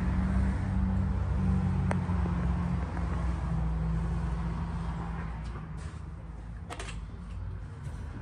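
Steady low mechanical rumble, like an engine or machinery running, that fades over the second half, with a couple of faint clicks.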